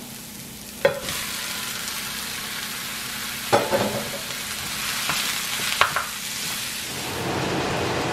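Ground chuck sizzling as it goes into hot oil and sweated onions in a nonstick skillet. The sizzle starts about a second in after a click and grows louder near the end, with a few short knocks of a utensil breaking up the meat in the pan.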